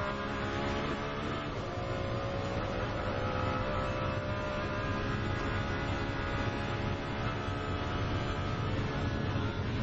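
Ferrari 599XX's V12 engine running at high revs, heard on board, with a steady sustained note whose pitch climbs a little in the first few seconds and then holds.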